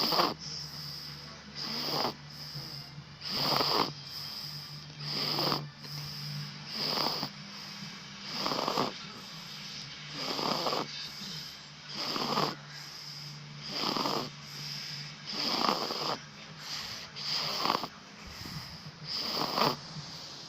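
A small child snoring in her sleep: a regular, rasping snore with each breath, about one every second and three quarters.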